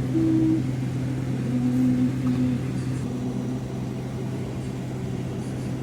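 A steady low hum at one pitch. Over the first three and a half seconds a few short, steady, higher tones sound, each about half a second long.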